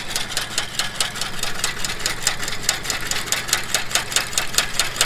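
New Holland 451 sickle bar mower running, its freshly fitted knife clattering back and forth against the guards in a rapid, even rhythm of sharp clicks, over the tractor engine's steady hum.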